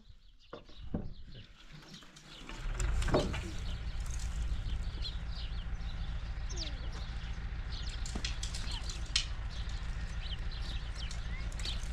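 A steady low hum sets in about three seconds in, with many short, high chirps of birds scattered over it.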